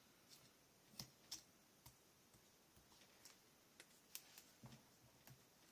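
Near silence with faint, irregular small clicks and taps from paper pieces being handled and placed on a scrapbook layout.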